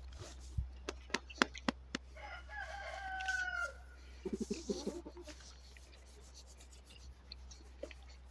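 A rooster crows once, about two seconds in, followed by a quick run of low clucks. A few sharp clicks come before the crow.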